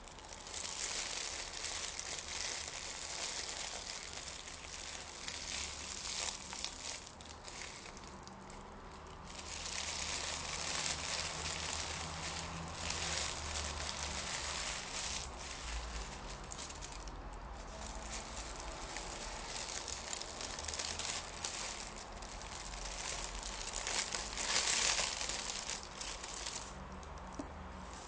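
A sheet of paper being crinkled and handled, rustling in long stretches with brief lulls; loudest about 25 seconds in.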